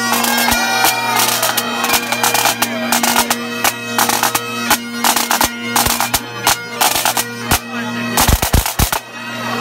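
Bagpipes playing a tune over their steady drones, with many sharp cracks and knocks scattered through. Near the end the pipes fall away and a few low thumps are heard.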